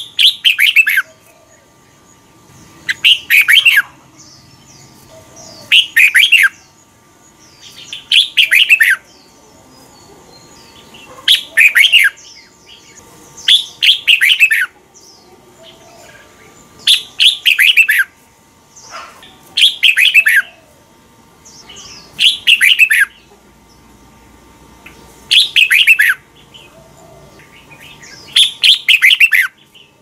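Red-whiskered bulbul singing: short, rapid song phrases about a second long, repeated about eleven times, every two to three seconds.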